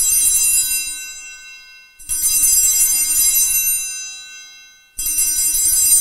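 Altar bells rung at the elevation of the consecrated host: three rings of bright, high jangling tones, each fading away, the first already sounding and fresh rings about two seconds and about five seconds in.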